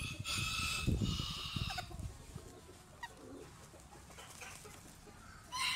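Domestic hen calling: a drawn-out call with a short break in the first two seconds, then another call beginning near the end.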